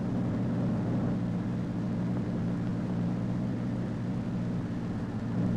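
Steady low drone of aircraft engines passing over, with no change in pitch.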